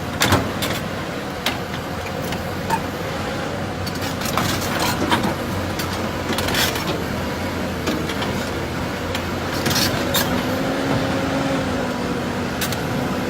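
Caterpillar 320DL excavator's diesel engine running steadily, with scattered sharp metallic clanks and knocks from work on its tracks.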